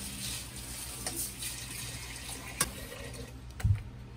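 Kitchen tap running into a stainless steel pot as it is rinsed out under the faucet. There is a sharp metallic clink about two and a half seconds in and a dull knock near the end.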